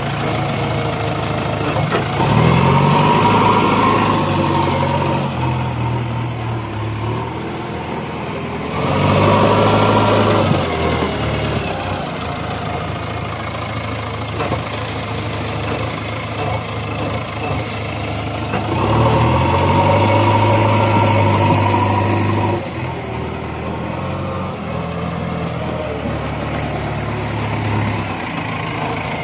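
Heavy diesel engine of a tractor or backhoe loader running steadily, revving up three times for a few seconds each, as when working under load.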